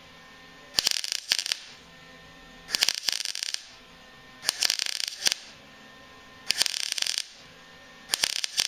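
MIG welder stitch-welding a steel frame repair section: five short crackling bursts of the arc, each under a second, about two seconds apart.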